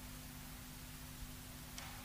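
Quiet room tone: a steady hiss with a steady low hum, and one faint click near the end.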